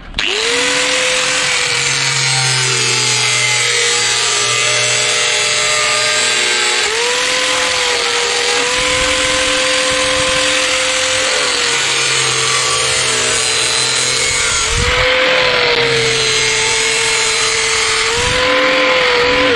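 Angle grinder with a cutting disc running and slicing lengthwise through PVC pipe. The motor whine holds steady, sagging and recovering a few times as the disc bites into the plastic, and winds down right at the end.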